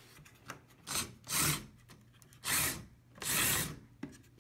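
Handling noise: four short scraping rubs, each about half a second long or less, spaced roughly a second apart.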